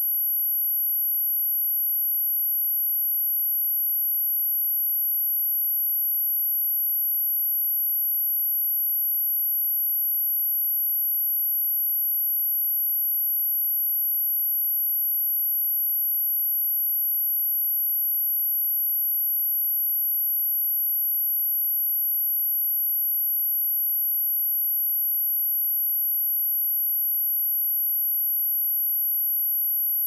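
A synthesized 11,732 Hz sine test tone: one steady, very high-pitched pure tone at constant level, used for speaker testing and speaker cleaning.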